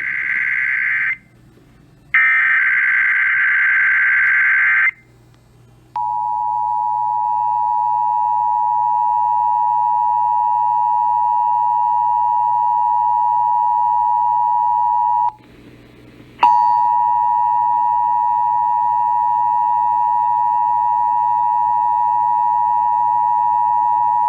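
Emergency Alert System test: two bursts of the screeching SAME digital data header, then the steady two-tone attention signal (853 and 960 Hz played together). The tone breaks off for about a second around two-thirds through and starts again.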